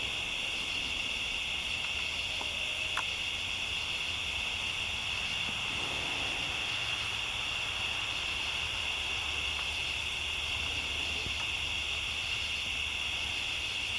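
Night insects calling in a steady, unbroken chorus, high in pitch, with a faint low rumble beneath.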